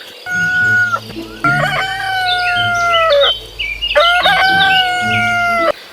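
A rooster crowing: a short call near the start, then two long, drawn-out crows of about two seconds each.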